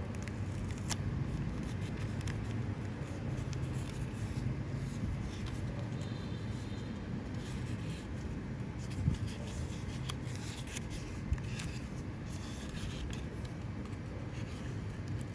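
Paper rustling and crinkling as a sheet is rolled into a cone and clear sticky tape is pressed down along it, with light scrapes and a couple of small taps, over a steady low background hum.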